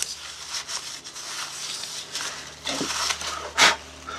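Cloth duster wipe rubbing over the glass and metal bezel ring of an aircraft instrument's front cover: a run of uneven scrubbing strokes, with a louder stroke about three and a half seconds in.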